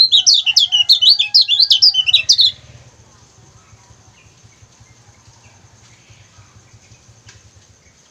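A kecial kuning, a small yellow white-eye, singing a rapid run of high, sharp chirps. The song stops about two and a half seconds in, leaving only a faint low hum.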